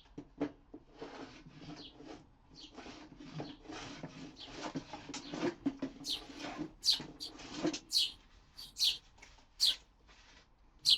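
Short rasping strokes of a hand plane working the wooden workbench top, several a second, over the first half. A small bird then chirps sharply about once a second, each chirp a quick falling whistle.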